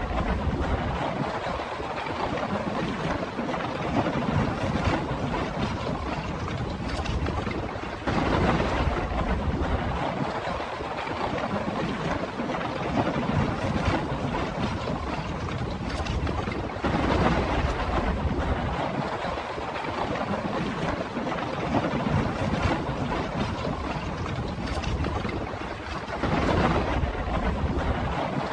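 Rushing wind and water noise, with wind buffeting the microphone and a low rumble, swelling every four seconds or so.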